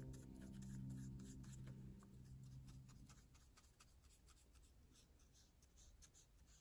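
Faint scratching of a marker nib on paper in many short, quick strokes as petals are coloured in. Sustained low background music tones fade out over the first three seconds.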